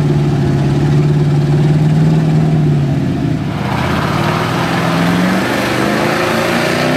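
Lifted mud trucks' engines running loud: first a steady, held engine note, then about halfway through a second truck revving higher as its oversized tyres spin and churn through mud and water.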